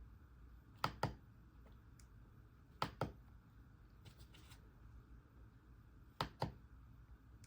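RK Royal Kludge S98 mechanical keyboard: a key pressed and released three times, each a pair of sharp clicks, with a few fainter ticks between.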